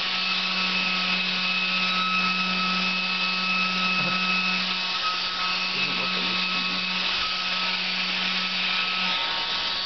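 Small 12-volt hair dryer motor and fan running steadily on a car lighter socket: a constant hum and whine with the rush of air.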